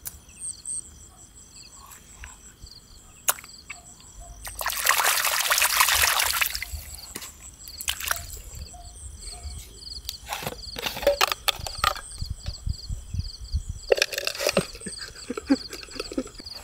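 A hand splashing and grabbing through shallow pond water to catch a small frog, with a long sloshing burst about five seconds in, scattered small splashes and knocks after it, and another splash near the end. Insects chirp steadily in the background.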